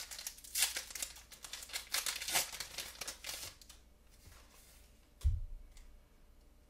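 Foil wrapper of a Pokémon TCG booster pack crinkling and tearing open: a dense run of crackles for about three and a half seconds. A single low thump follows a little after five seconds in.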